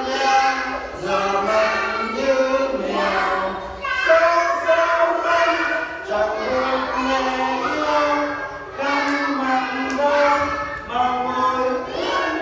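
A group of young children singing a song together in unison, in short phrases with held notes, as an action song with hand gestures.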